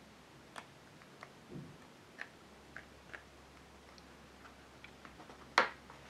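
Faint, scattered small clicks and ticks from a paperback picture book being handled, with one louder, sharp paper snap about five and a half seconds in as a page is turned.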